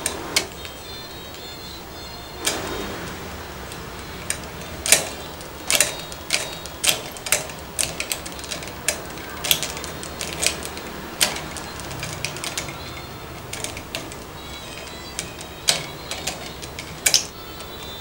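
A budgerigar knocking the red plastic ball of a bowling-pin cage toy with its beak: irregular sharp plastic clicks and taps, a couple of dozen of them, some in quick pairs.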